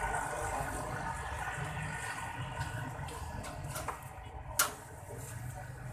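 Outdoor street ambience: low rumble and faint scattered chatter from a waiting crowd, with a few small clicks and one sharp click a little past the middle.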